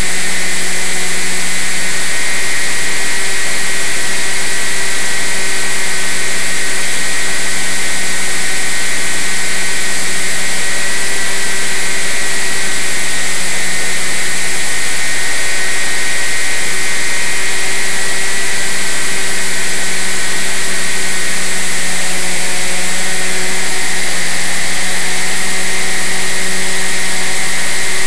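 Motor and propeller of a radio-controlled flying wing running steadily in flight, heard close up from on board: a steady hum and a high whine over loud rushing noise.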